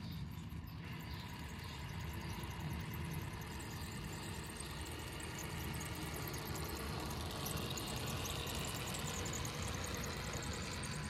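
Traxxas TRX6 RC truck's electric motor and drivetrain whirring as it drives over grass and gravel, growing a little louder about halfway through as it nears.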